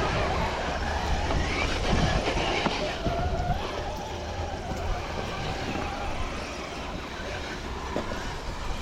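Radio-controlled crawler truck's electric motor whining, its pitch rising and falling with the throttle, over a low wind rumble on the microphone.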